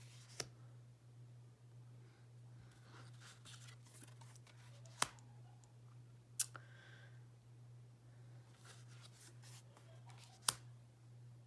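Tarot cards being flipped and laid one by one onto a pile: four sharp light card snaps a few seconds apart, with soft sliding rustle of card stock between them, over a faint steady low hum.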